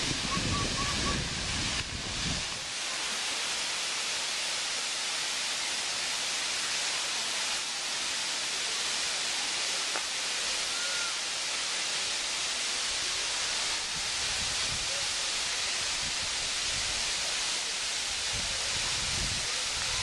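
Powerscourt Waterfall, water cascading down a steep rock face, giving a steady, even rushing hiss. A low rumble sits under it in the first couple of seconds.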